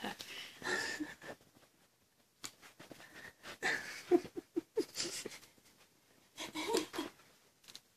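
Crisp packet crinkling in short, irregular bursts as a kitten with her head inside it licks the salt out.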